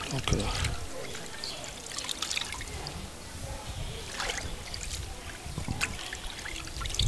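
Water trickling and dripping as wet leafy greens are handled by hand in a metal pot, with scattered rustles and a few light knocks.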